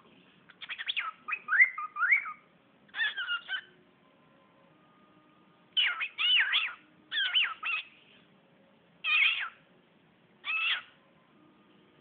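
Cockatiel chattering and whistling in short runs of quick, gliding chirps, with a pause in the middle and two single calls near the end.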